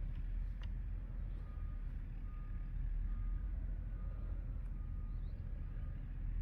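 A short electronic beep repeating a little more than once a second, starting about a second and a half in, over a steady low rumble.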